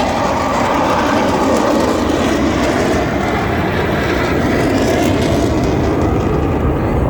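Blue Angels F/A-18 Super Hornet jets flying over, a loud, steady jet-engine roar.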